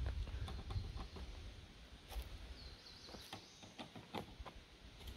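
Footsteps rustling and crunching through dry leaf litter on a forest floor, in scattered soft steps. A single brief high bird chirp sounds about two and a half seconds in.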